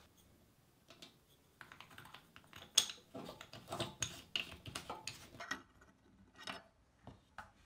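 Faint, irregular clicks and light taps of a brass faucet valve body and its fittings being handled and fitted into a sink, with a wrench on the lock nut underneath.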